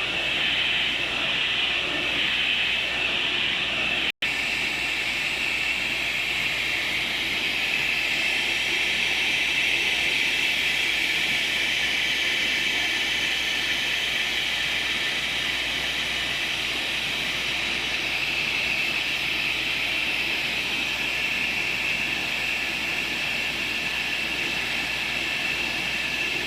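Focus 60x90 cm UV flatbed printer running: a steady whirring hiss. It cuts out for an instant about four seconds in.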